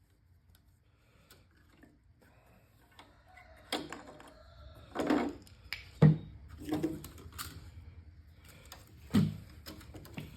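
Scattered knocks and clunks of a small welder and tools being handled at the start of taking it apart, quiet for the first few seconds and then about half a dozen separate hits, the sharpest about six seconds in.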